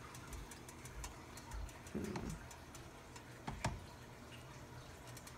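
Ice cubes in a plastic tub of water giving faint, irregular ticks and crackles as a glass bottle is handled among them, with a soft thump about two seconds in and a sharper knock about three and a half seconds in.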